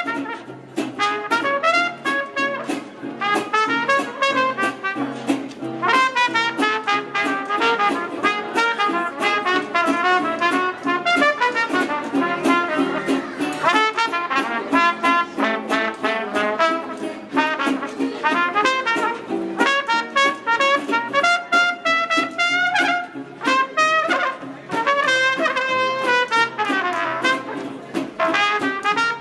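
A band playing lively jazz-style music led by brass horns, trumpet and trombone, with the melody moving through many quick notes and some sliding pitches.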